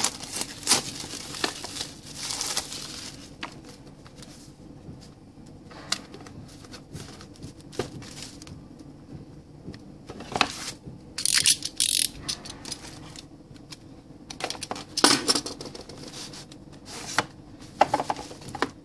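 Clear plastic wrapping on a Nokia 3 retail box crinkling as it is peeled off, then the cardboard box being turned over and opened, with scattered clicks, rubs and scrapes. Louder bursts of rustling and scraping come about ten to twelve seconds in and again around fifteen seconds.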